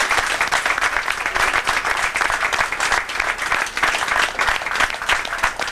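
A roomful of people applauding, steady clapping throughout.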